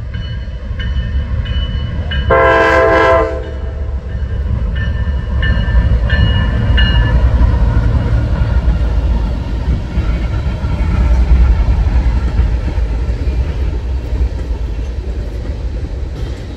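Norfolk Southern diesel freight train passing: the lead locomotive gives one short horn blast about two seconds in. Short ringing tones repeat about twice a second before and after the blast, over the steady low rumble of the locomotives and then the rolling tank cars.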